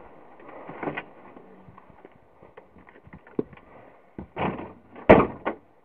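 Footsteps, rustling and scattered knocks as someone walks through a doorway indoors, with two louder thumps near the end, the second one sharp.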